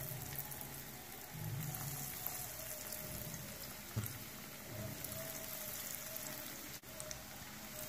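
Breaded chicken sticks shallow-frying in hot oil in a frying pan on a low-to-medium flame: a steady crackling sizzle, with a few soft knocks as more sticks are laid into the pan.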